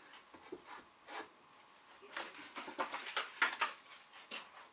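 Quiet rustling and soft knocks of flat-pack table parts and packaging being handled and set down, in short irregular bursts that grow busier about halfway through.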